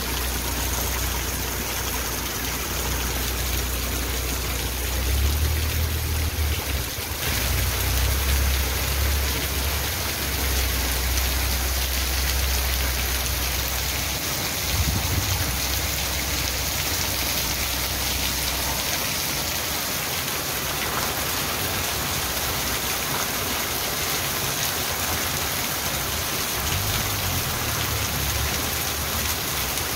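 Heavy rain pouring steadily onto a street, plants and roofs, with water running off the roof edge. A low rumble comes and goes, strongest from about five to ten seconds in and again near the end.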